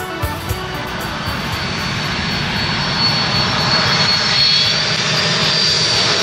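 Four-engine jet airliner on low final approach passing overhead: a steady jet engine rush with a high whine, growing louder as it nears.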